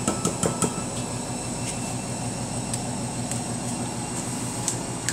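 Eggshell tapped a few times against the rim of a bowl to crack the egg, then a few faint clicks. Underneath is a steady low mechanical hum with a fast even pulse, which is the loudest thing once the taps stop.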